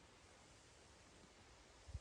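Near silence: a faint steady hiss, with a brief low thump just before the end.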